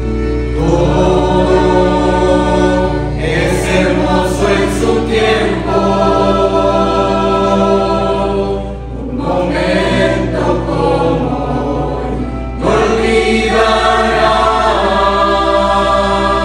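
Mixed youth choir singing a slow Spanish-language wedding hymn in long phrases, over sustained accompaniment that includes an acoustic guitar. A phrase ends about nine seconds in and the choir comes back in louder a few seconds later.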